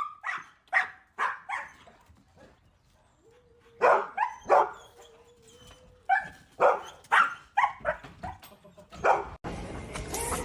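A dog barking in short repeated barks, in bursts with pauses between them. In the last second a steady hiss takes over.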